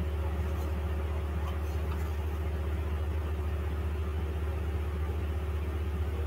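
A steady low hum with a few faint higher overtones, unchanging throughout.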